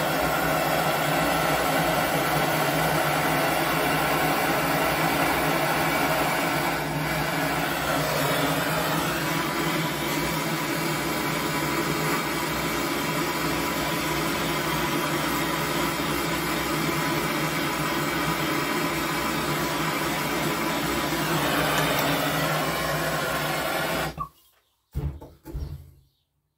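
Handheld gas blowtorch burning steadily with a constant roar, heating a two-stroke piston to loosen rings stuck by carbon. The flame cuts off suddenly near the end, followed by a couple of short handling sounds.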